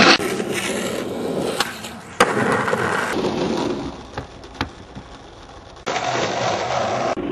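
Skateboard wheels rolling over rough asphalt, a steady gritty rolling noise, with a few sharp clacks of the board against the ground. The sound changes abruptly several times as the footage cuts.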